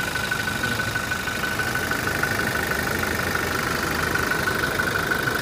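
Toyota Innova Venturer's 2.4-litre 2GD four-cylinder turbodiesel idling steadily with the hood open, a steady high whine running over the engine note.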